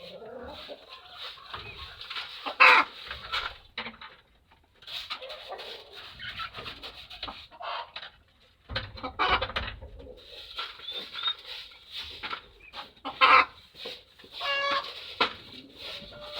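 Chickens clucking and calling, many short irregular calls from a crowd of birds, with a few louder squawks, one about three seconds in and another near the end.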